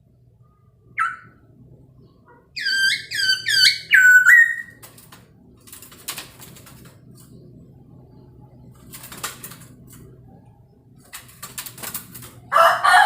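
Masked laughingthrush (poksay Hongkong) calling: a single short note about a second in, then a rapid run of about five loud, ringing whistled notes a little after two seconds. Brief scratchy noises follow, and a loud harsh burst comes near the end.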